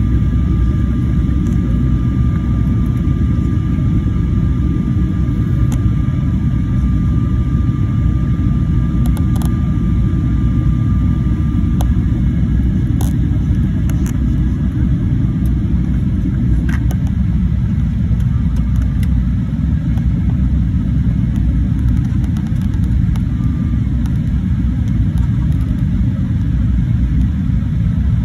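Steady low rumble of a jet airliner's cabin on descent, engine and airflow noise heard from a seat over the wing. A faint high whine sounds over it and stops about twelve seconds in.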